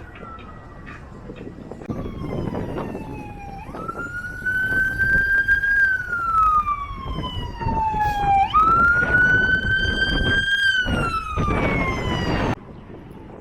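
Emergency vehicle siren wailing over street noise: each cycle rises quickly and then falls slowly over about four seconds, growing louder about four seconds in. It cuts off abruptly near the end.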